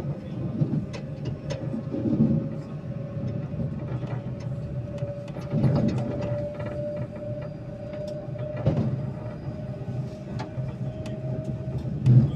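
Electric commuter train heard from on board while running: a low rumble with short clicks and a heavier thump about every three seconds from the wheels over the rails. A steady whine comes up clearly about four seconds in and creeps slightly higher in pitch near the end.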